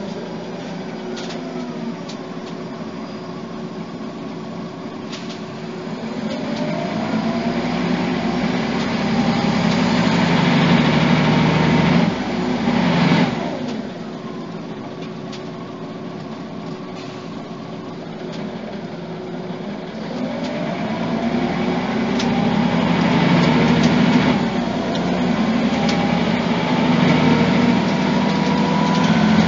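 Scania DC9 five-cylinder diesel and ZF automatic gearbox of a Scania OmniCity articulated bus under way. The engine pulls with a rising pitch from about six seconds in, drops back abruptly around twelve seconds, runs quieter and steady, then accelerates again with a rising pitch from about twenty seconds.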